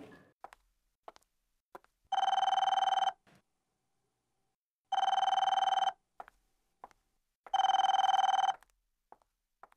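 Telephone ringing: three rings of about a second each, with a fast trilling tone and roughly two and a half seconds between them.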